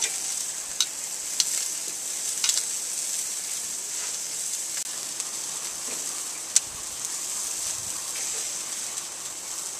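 Italian sausages sizzling steadily as they sear on a hot charcoal grill grate, firming up their casings. A few sharp clicks of metal tongs against the grate as the sausages are turned, the loudest about two-thirds of the way in.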